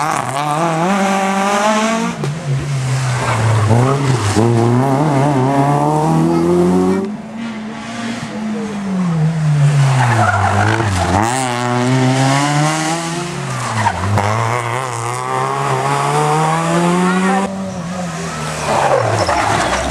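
Rally cars, among them a Peugeot 206, take a bend one after another with their engines revved hard. Each engine's pitch drops as it brakes and downshifts, then climbs again as it accelerates away.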